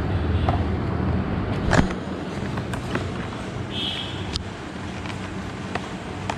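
Clicks and light knocks of a small accessory box and its packaging being handled and opened, with one louder knock about two seconds in, over a steady low hum.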